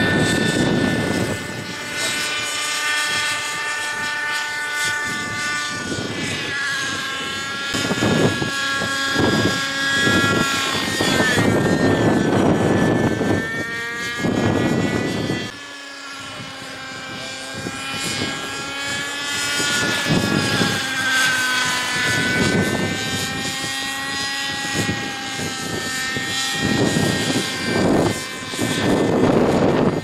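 Radio-controlled model helicopter flying overhead, its engine and rotor whine rising and falling in pitch as it manoeuvres. Gusts of wind buffet the microphone again and again.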